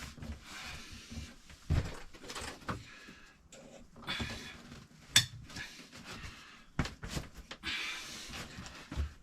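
Gear being handled and put away in a cabinet: scattered knocks and clicks, the sharpest about two seconds in and near the middle, between bouts of rustling.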